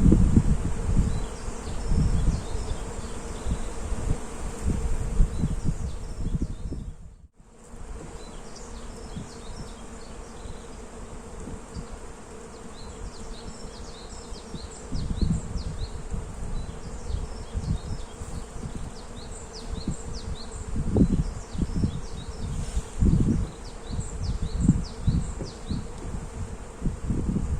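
Honeybees buzzing steadily in flowering cherry trees, with low gusts of wind buffeting the microphone as the loudest sounds and short high chirps of small birds, mostly in the second half. The sound cuts out briefly about a quarter of the way through.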